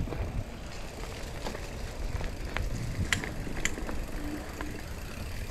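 Mountain bike rolling along a dirt singletrack trail: a steady low rumble of tyres and frame, with a few sharp rattles and clicks from the bike, the loudest about three seconds in.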